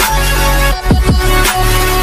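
Electronic background music with sustained heavy bass notes and sharp hits that drop quickly in pitch.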